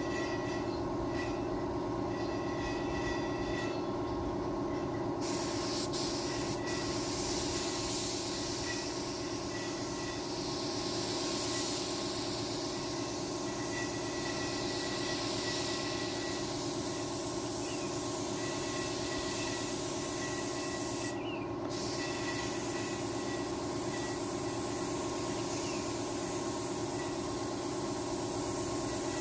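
A steady mechanical drone of several held tones, with a hiss that starts about five seconds in and cuts out briefly near the twenty-first second.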